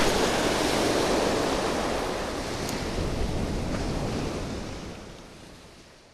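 Small surf breaking and washing up the sand close by, with wind buffeting the microphone; the sound fades out near the end.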